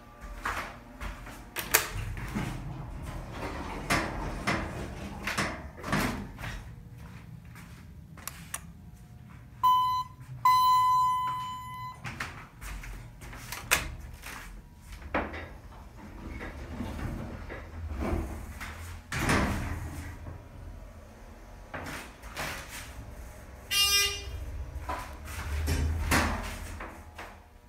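Thyssenkrupp hydraulic elevator in operation: its sliding doors and car rattle with scattered clicks and knocks over a low rumble. A little before halfway there are two electronic beeps, a short one and then one held about a second and a half, and a brief tone near the end.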